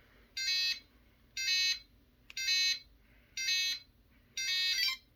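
FlySky RC transmitter's warning beeper sounding its switch warning alarm: five even beeps, about one a second, each about half a second long.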